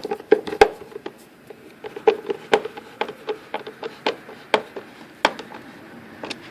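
A screw being driven by hand into the 4Runner's tail-light housing: a run of irregular clicks and small knocks from the screwdriver and screw, about two a second.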